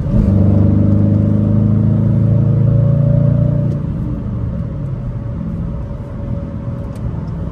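2019 Dodge Challenger R/T's 5.7-litre Hemi V8 pulling hard under acceleration, its pitch rising slowly, then falling back to a quieter, lower drone about four seconds in.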